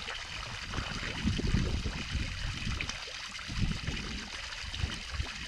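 Small garden fountain: a low jet bubbling up and splashing steadily into its round stone basin.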